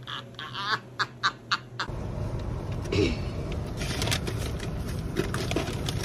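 A rapid run of short, quack-like calls, about five a second. About two seconds in it gives way to the steady low rumble of a car heard from inside the cabin, with a few small clicks.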